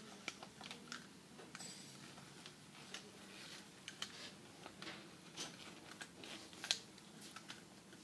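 Faint handling noise as stranded copper wires are worked through a plastic liquid-tight 90-degree conduit connector by hand: scattered small clicks and rustles, with the sharpest click about two-thirds of the way through.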